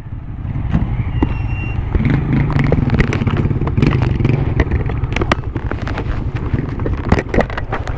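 Motorcycle engine running as the bike rides along, growing louder over the first couple of seconds as it pulls away, with wind buffeting and crackling on the microphone throughout.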